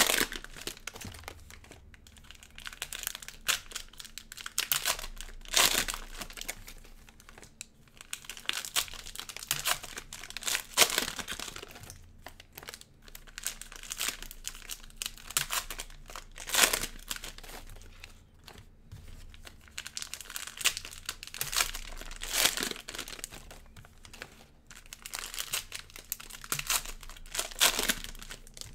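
Cellophane wrappers of Panini Prizm basketball cello packs being torn open and crinkled by hand, in irregular bursts of rustling.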